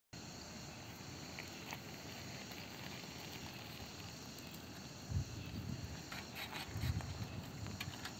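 Quiet outdoor ambience with a faint steady hiss. From about five seconds in come a few soft low thumps and light clicks as an old bicycle passes close by.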